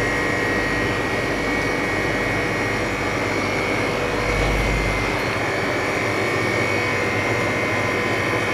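Phone-screen LCD freezer machine's refrigeration unit running: a steady mechanical drone with a high whine over it. A brief low bump comes about four and a half seconds in.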